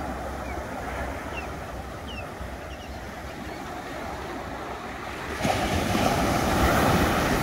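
Ocean surf washing onto a sandy beach. A louder wave breaks about five and a half seconds in, swells for a second or two and then recedes.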